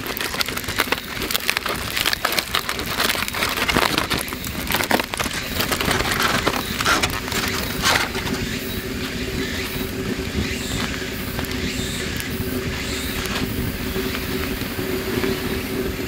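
Aluminium foil crinkling and crackling as it is unwrapped from a potato baked in the campfire, a dense run of crinkles for about the first half before settling into a quieter, steadier rustle.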